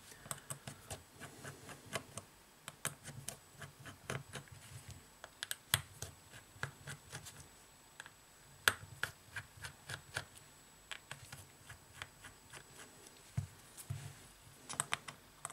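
Irregular small clicks and scratches of a precision screwdriver working tiny screws out of a smartphone's midframe, with a few sharper clicks from handling the phone.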